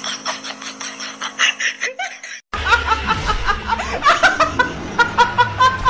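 A young woman laughing hard in loud, repeated giggling bursts, starting suddenly about two and a half seconds in after a brief silence. Before it, a fast, even soft ticking.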